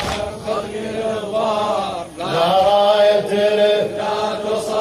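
Male voice chanting a Shia Husseini mourning lament (noha). The sung line breaks off about two seconds in and starts again.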